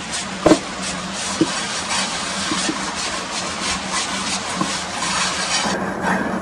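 A cooking pot scrubbed by hand with a bundle of grass: quick repeated scraping strokes, with a sharp knock about half a second in.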